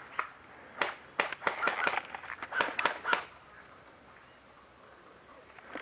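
Irregular footsteps and knocks of a player moving over the ground, some in quick clusters, for about three seconds, then they stop.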